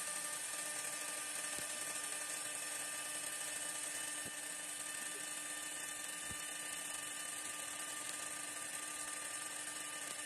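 High-speed milling spindle on an RS1530SA-4 CNC wood lathe running and cutting a resin workpiece: a steady high-pitched whine over a hiss, with a few faint ticks.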